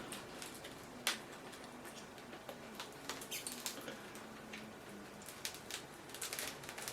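Faint scraping and small sharp clicks of an opening tool slicing through the adhesive under a tablet's LCD, with one louder click about a second in.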